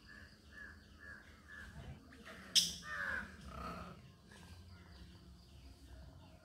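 A run of five short, harsh animal calls in quick succession, then a sharp click about two and a half seconds in, followed straight away by a louder, longer call.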